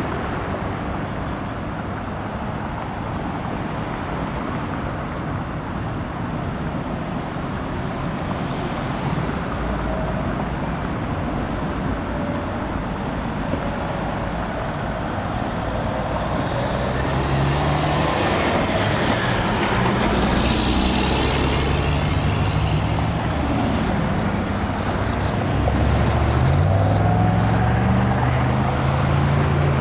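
Highway traffic passing close by: a steady wash of tyre and engine noise that grows louder in the second half as vehicles drive past, with one engine rising in pitch near the end.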